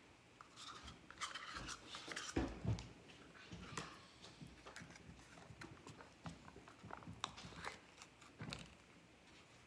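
Plastic pudding cups and a spoon handled during fast eating: scattered clicks and crinkles of the thin plastic cups, the spoon scraping them out, and a few dull knocks about two and a half seconds in.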